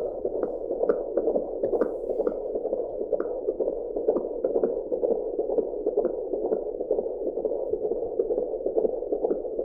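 Fetal heartbeat heard through an AngelSounds handheld fetal Doppler: a rapid, regular whooshing pulse, a little over two beats a second, with no pauses.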